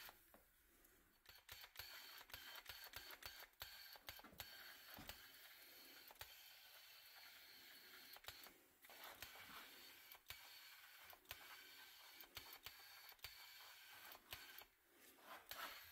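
Faint hiss of paint being sprayed onto a sheet-metal toy truck part, broken by short pauses near the start, about halfway through and near the end, with many sharp clicks scattered throughout.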